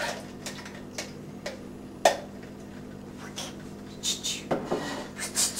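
Kitchenware being handled: a few small knocks and clicks of a container against a blender jar, one sharper knock about two seconds in, then a short run of clatter and rustling near the end.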